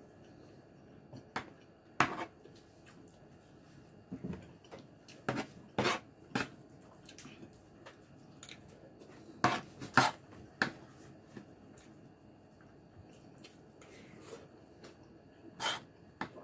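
Metal spoon tapping and scraping on wooden plates while eating, in scattered sharp clicks with quiet gaps between.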